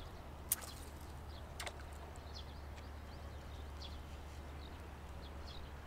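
Small birds chirping over a steady low rumble, with two sharp clicks about half a second and a second and a half in.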